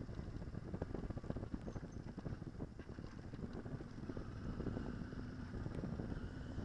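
Yamaha motorcycle running at riding speed, its engine mostly buried under gusty wind buffeting on the microphone.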